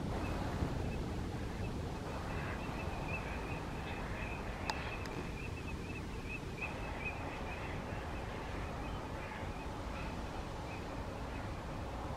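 A flock of northern lapwings calling in flight: many short calls overlapping in a steady chatter, over a low steady rumble.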